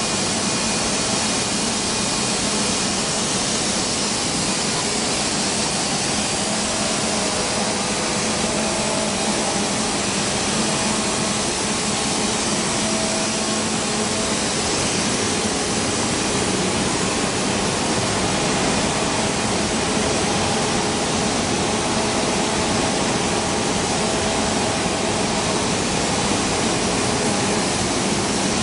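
Steady rushing machine noise with faint hums that come and go, typical of a woodworking CNC router running with its extraction.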